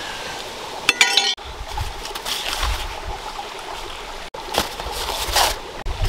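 Handling of a woven basket and ears of corn: rustling of husks and wicker, with a short clinking rattle about a second in.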